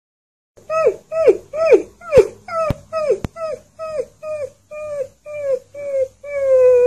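A husky-type puppy "talking": a string of short whining yips that each slide down in pitch, about two a second, then one long, steady howl starting near the end.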